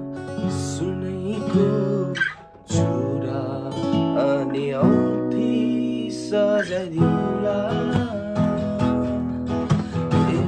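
A man singing while strumming an acoustic guitar, with a brief break about two and a half seconds in.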